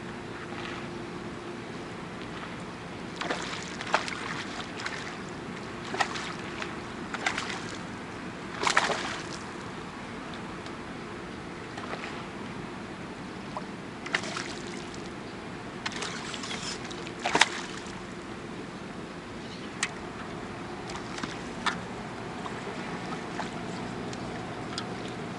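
Water lapping and sloshing steadily, with a faint low hum. About a dozen sharp splashes and clicks come at irregular intervals, the loudest two about nine and seventeen seconds in.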